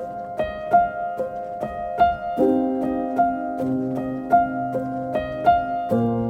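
Background music: a piano-like keyboard playing repeated plucked notes, about three a second, over sustained chords, with the chord changing about two seconds in and a deeper bass note coming in near the end.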